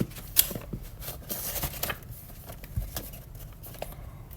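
Paper rustling with a few soft clicks and scrapes, as a page of a picture book is turned and handled.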